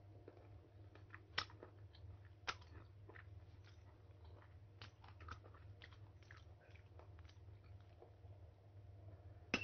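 Close-up chewing and biting of crisp unripe mango slices: many small crunching clicks, with a few louder sharp snaps, two in the first few seconds and one near the end.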